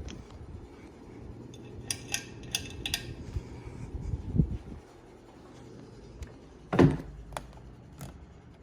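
Light clinks and taps of hard objects being handled, a cluster of them about two to three seconds in, then a single louder knock about seven seconds in.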